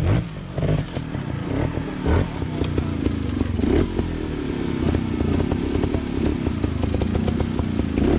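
Trials motorcycle engine blipped and revved in short bursts, its pitch repeatedly rising and falling, as the bike climbs over boulders, with sharp knocks scattered through it.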